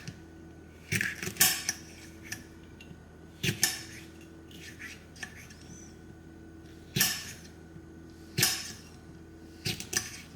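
Kitchen knife chopping vegetables on a chopping board: about seven separate cuts, slow and unevenly spaced, some in quick pairs.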